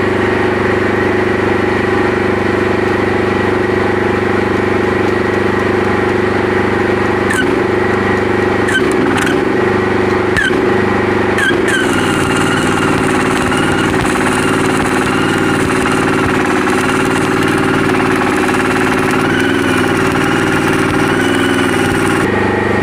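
An engine runs steadily throughout. About seven seconds in, a few short crackles as the welding electrode is struck on the excavator's steel linkage, then from about halfway a steady stick-welding arc crackles and hisses until it cuts off suddenly near the end.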